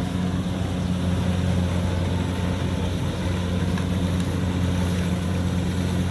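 Kubota DC70 combine harvester running steadily, a constant low engine drone with no change in speed.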